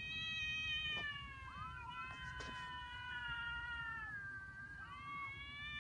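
Angry cat yowling: three long drawn-out calls in a row, each held a second or more and wavering in pitch.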